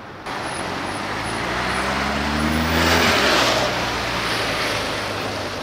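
Police motorcycle engine passing close by: its note grows louder, drops in pitch as it goes past about three seconds in, then fades under steady road noise.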